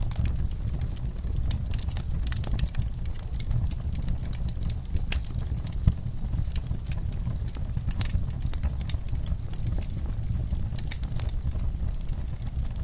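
Wood fire crackling in a fireplace: frequent irregular sharp pops and snaps over a steady low rumble of the flames, with one louder pop about six seconds in.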